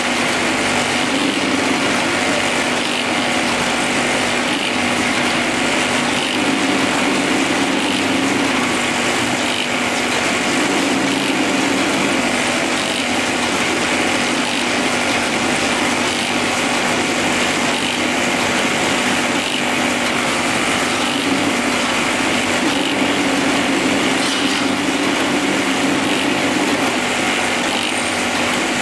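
Newlong automatic bag-sewing machine running at speed, its sewing head stitching continuously: a steady, even mechanical whir with a constant hum underneath.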